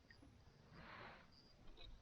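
Near silence: faint outdoor background with a soft, brief swish about a second in and faint high chirps recurring.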